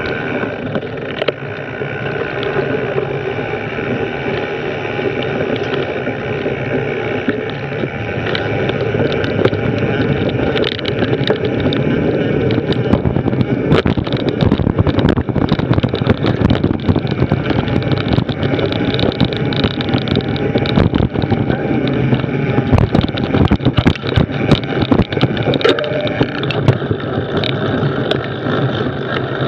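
Mountain bike ridden over a dirt woodland trail: steady tyre and drivetrain noise with wind on the microphone, and frequent rattles and knocks as the bike goes over bumps. It gets louder through the faster middle stretch and eases off near the end as the bike slows.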